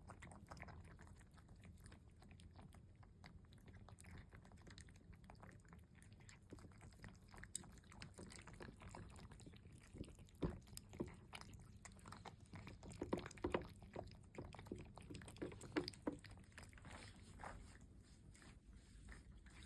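Cats eating, with faint chewing and a scatter of small crunching clicks that come thickest about halfway through.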